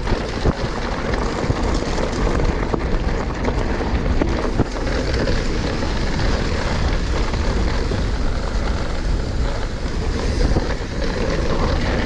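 Wind rushing over the microphone and mountain bike tyres rumbling over a dirt trail, with a few sharp clicks and rattles from the bike.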